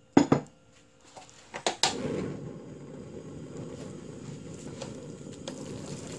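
Marinated beef going into a hot nonstick frying pan with a couple of sharp knocks. From about two seconds in, a steady low frying and stirring noise follows as a wooden spatula works the meat.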